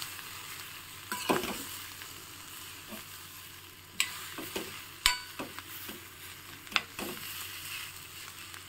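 Metal ladle stirring and scraping mashed potato in a kadai, with a few sharp clinks of the ladle against the pan, over a steady light sizzle of the onion and potato frying in oil.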